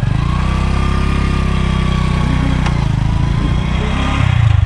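Motorcycle engine running steadily as the bike rides along, briefly louder near the end.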